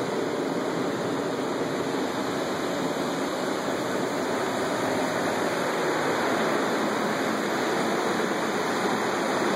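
Steady rushing of running water, an even noise that does not change.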